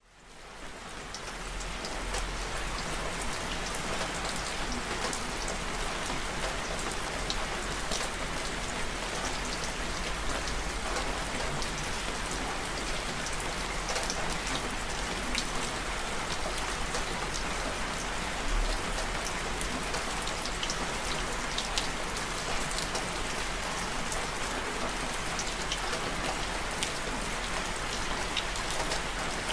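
Steady rain falling: a dense, even hiss dotted with many small drop ticks. It fades in over the first second or two.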